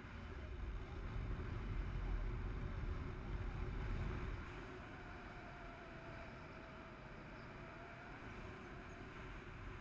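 Wind rushing over the camera microphone from the paraglider's airspeed in flight, a low steady rumble that swells for a few seconds and eases off about four and a half seconds in.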